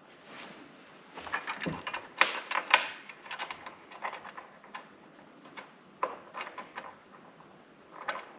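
Metal mounting hardware (bolts, washers and a nut) clinking and tapping as it is handled and fitted by hand, in irregular clicks with a busier run about two seconds in.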